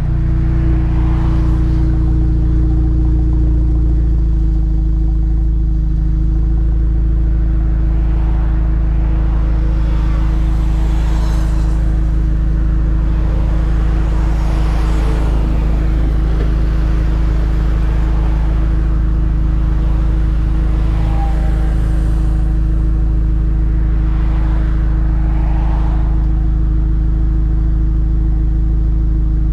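Mk7 Volkswagen GTI's turbocharged 2.0-litre four-cylinder idling steadily through its VWR Cup Edition exhaust, heard right at the tailpipe.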